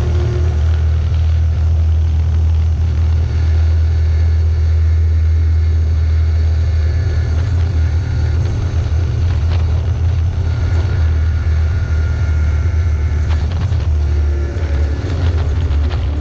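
Motor vehicle driving along a rough dirt road, its engine and running gear giving a steady low rumble, with a few knocks and rattles from bumps.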